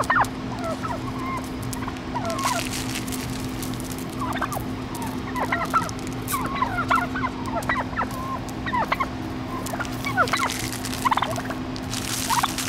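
A flock of wild turkeys making many short, squeaky calls, scattered in quick clusters, each a brief rising or falling squeak.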